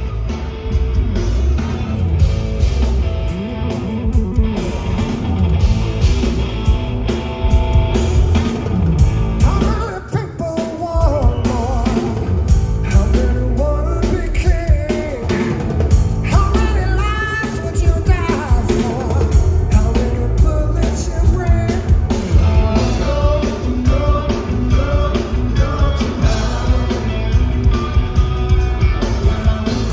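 Live rock trio playing: electric guitar, electric bass and drum kit at full volume, with a male lead vocal coming in about ten seconds in.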